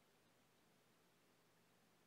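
Near silence: faint steady room tone with a low hum.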